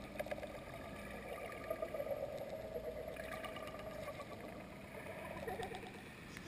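Muffled underwater ambience in a swimming pool: a steady hum at several fixed pitches with a faint crackle, as picked up by a camera held under the water.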